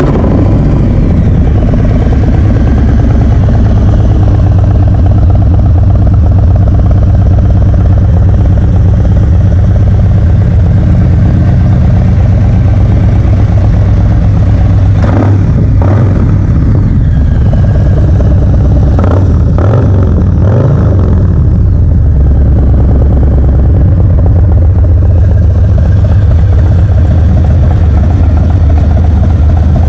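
2022 Harley-Davidson Low Rider S's Milwaukee-Eight 117 V-twin, through a Bassani 2-into-1 Shorty Ripper exhaust, idling loudly. About halfway through come two quick blips of the throttle, then a few more revs in quick succession a few seconds later, before it settles back to a steady idle.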